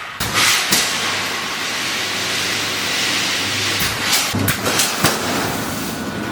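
Reinforcing wire mesh welding machine running: a steady hiss with a low hum that comes and goes, broken by several sharp metallic clacks.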